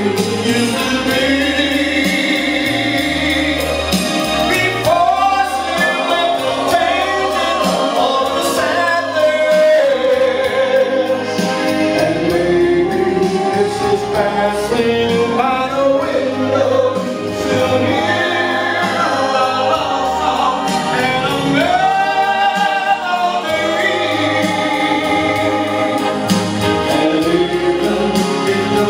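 A man singing a song into a microphone over instrumental backing music, played through PA loudspeakers in a hall.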